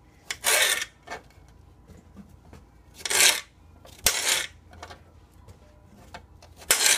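Kitchen knife slicing zucchini into strips on a cutting board: four short cutting strokes, unevenly spaced, with light taps of the blade between them.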